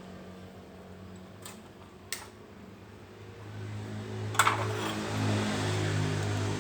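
A few sharp metallic clicks and clinks of tools and parts being handled, over a steady low mechanical hum that grows louder in the last two seconds.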